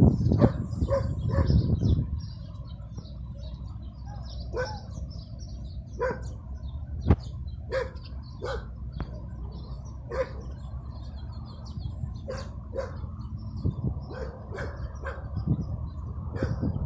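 A dog barking, loudest in the first two seconds, followed by short sharp sounds every second or so over a steady low background.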